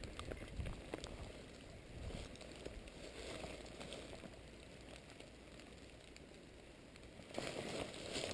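Faint rustling, then about seven seconds in, footsteps on dry leaf litter start, louder and steady.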